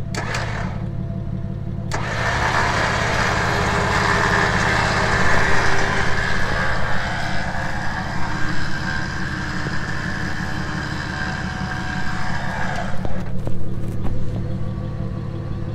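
Electric winch motor running as the rear winch spools its synthetic rope in. It starts with a short blip, then runs steadily from about two seconds in and stops near thirteen seconds, over the truck's engine idling.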